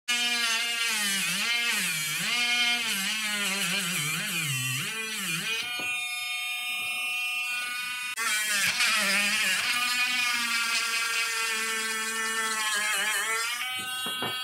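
Small handheld mini grinder (rotary tool) with a grinding bit cutting into a small piece of wood, a high motor whine whose pitch dips again and again as the bit bites in and recovers as it eases off. It runs steadier in the second half and cuts off near the end.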